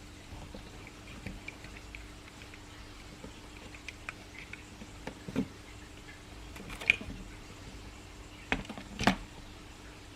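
Handling noises from a miniature M4A1/AR15 replica rifle: scattered small clicks and taps, with a sharp click about two-thirds of the way in and a couple of knocks near the end, over a faint steady hum.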